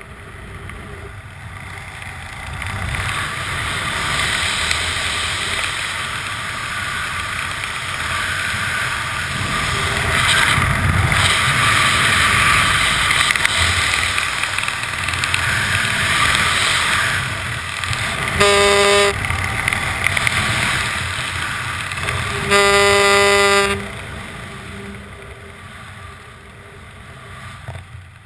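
Wind rushing over a helmet camera's microphone during a parachute descent under canopy, swelling through the middle and easing off near the end. Two horn-like toots cut through it: a short one about two-thirds in and a longer one of about a second a few seconds later.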